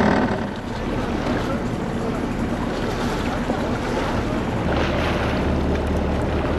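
Wind buffeting the microphone over the wash of lake water, heard from aboard a boat. A steady low hum, typical of a boat engine, comes in about two-thirds of the way through.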